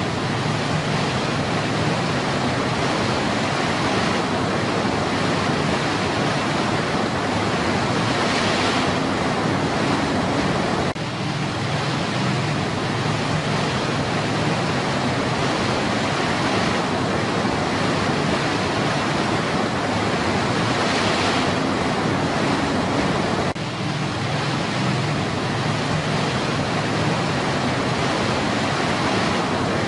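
Whitewater rapids cascading over rock ledges in a stream: a steady, even rush of water.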